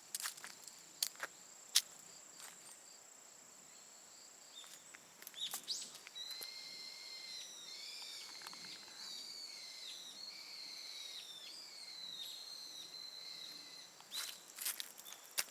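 A bird singing a long run of whistled, sliding notes for about eight seconds, over a steady high insect drone. A few sharp clicks come near the start and again near the end.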